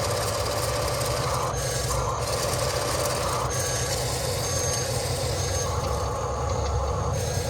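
Heavy construction-machine engine running steadily with a low rumble, while a higher tone switches on and off for a second or so at a time.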